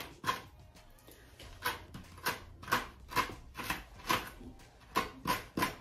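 Tweezers plucking hairs from a wig's lace hairline: a quick, irregular run of short ticks, two or three a second.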